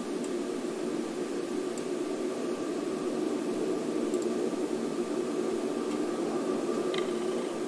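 A steady droning hum with hiss that holds level throughout, with a couple of faint ticks near the end.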